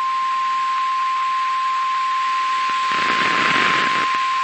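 NOAA Weather Radio 1050 Hz warning alarm tone: one steady high tone heard through radio reception, over a hiss of static that grows louder about three seconds in. The tone signals that a warning broadcast is about to follow.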